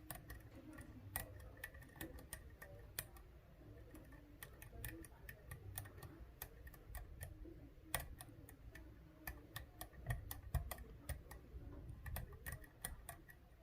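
Faint, irregular clicks and ticks of a lock pick and tension wrench working the pins of a Medeco D11 six-pin biaxial euro cylinder, prodding and turning a stubborn pin four.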